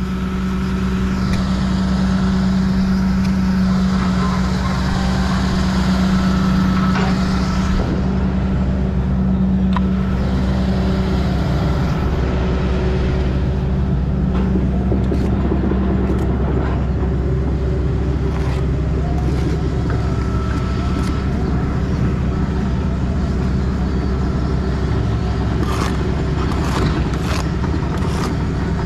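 An engine running steadily, its note changing slightly about halfway through, with a few sharp knocks near the end.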